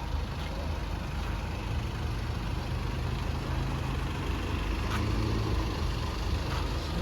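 Car running steadily, a low even engine and road hum.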